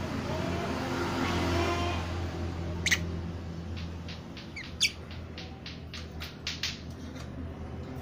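Caged lovebirds calling: a quick series of short, sharp chirps from about three seconds in, with two louder shrieks among them.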